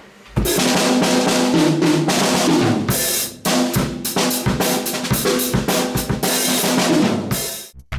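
Yamaha Beech Custom drum kit played: snare and bass drum strokes under a wash of cymbals, with a run of falling tom pitches about two seconds in. The playing starts about half a second in and stops just before the end.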